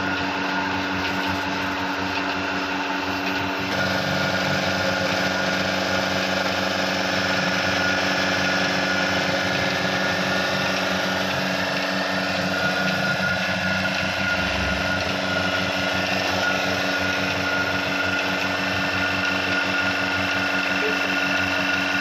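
Bereket mobile milking machine's electric motor and vacuum pump running steadily while milking a cow: a continuous mechanical hum with a whine, growing a little louder about four seconds in.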